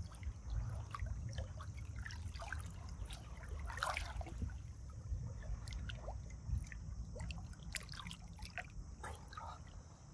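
Water trickling and dripping, with many small scattered splashes and clicks over a low steady rumble.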